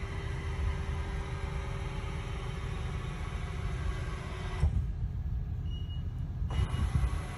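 X-axis servo drive of a Trak DPM5 CNC milling machine moving the table, a steady motor whine over a low rumble. The whine stops about four and a half seconds in, and the drive starts again about two seconds later.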